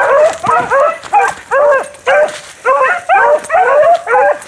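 A pack of hounds baying together as they run, several voices overlapping in rapid short arched calls, with a couple of brief lulls.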